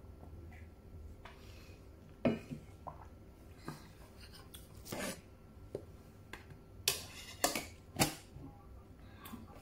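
Short clinks and knocks of a stainless steel mug and a metal tin being handled on a table: a sharp knock about two seconds in, quieter rubbing and clicks, then several more sharp knocks near the end.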